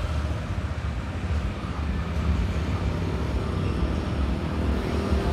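An engine idling steadily: a continuous low rumble.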